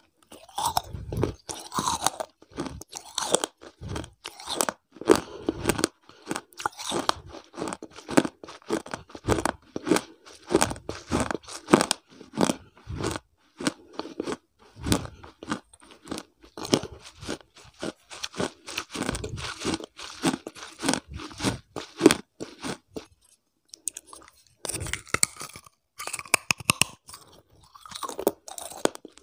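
Crunchy food being bitten and chewed right at a clip-on lapel microphone: dense, sharp, crackling crunches one after another, with a short pause near the end before the crunching starts again.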